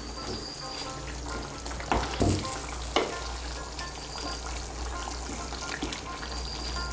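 Spatula stirring a thin, simmering fish curry in a kadai: steady bubbling and sizzling of the gravy, with the spatula knocking against the pan twice, about two and three seconds in.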